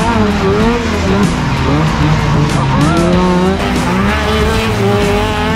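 Dirt-converted snowmobile engine revving hard as the sled is ridden up a dirt track, its pitch rising and falling again and again with the throttle.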